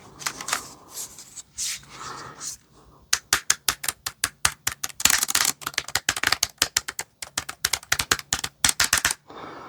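Keys of a ProtoArc foldable wireless keyboard clicking in a quick, irregular run of typing, starting about three seconds in after some brief handling noises.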